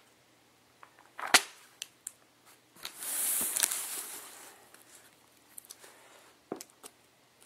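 Handling noise as a cardboard box is moved about by hand: one sharp click about a second in, then a brief hissing scrape around three seconds in, and a few light taps.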